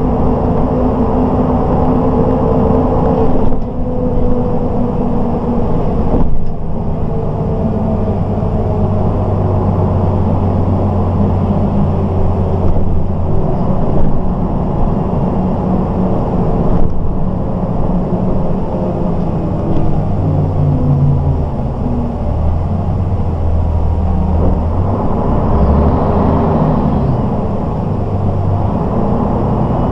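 MAN SL 202 city bus driving under way, heard from inside the passenger cabin: the diesel engine's note rises and falls as the bus speeds up and slows, over steady road noise.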